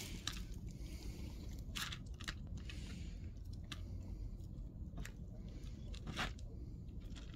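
A cat chewing dry kibble, with irregular crunches every second or so.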